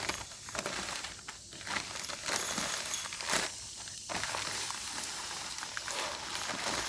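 Dry bagged concrete mix being poured into a post hole, an uneven gravelly rustle with crackles and one louder rush a little past the middle.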